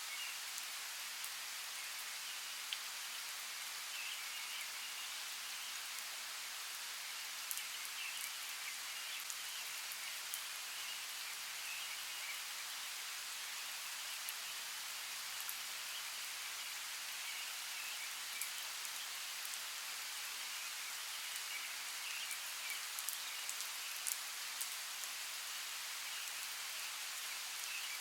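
Steady rainforest rain: an even hiss of falling rain with scattered sharp drips.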